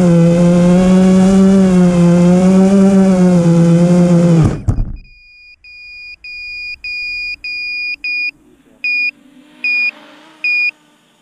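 FPV quadcopter's brushless motors and propellers whining steadily at idle on the ground, then spinning down and stopping about four and a half seconds in as the quad is disarmed. An onboard electronic beeper then sounds a run of high beeps that grow louder, followed by shorter beeps a little under a second apart.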